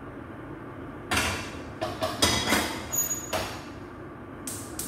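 Metal cookware clattering and scraping, a frying pan and pot being handled, with a brief high metallic ring in the middle and one last short clatter near the end, over a steady background hum.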